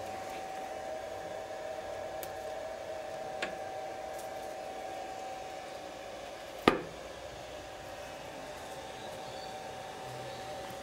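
A single sharp metal knock about two-thirds of the way through as the lid of a lathe's headstock gearbox is shut, over a steady hum with a constant mid-pitched whine.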